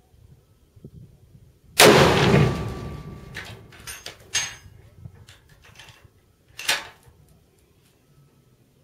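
A single shot from a Barrett 99-1 single-shot bolt-action .50 calibre rifle, about two seconds in: one very loud blast with a long fading tail. Over the next few seconds come a series of sharp metallic clicks and clacks as the bolt is worked, with a louder clack near the end.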